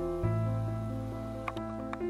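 Soft instrumental background music with held notes; a lower bass note comes in just after the start, and a few light plucked notes sound near the end.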